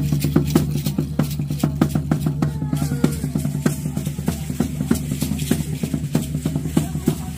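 Drum music: a fast, even drumbeat of about four strikes a second over a low sustained drone.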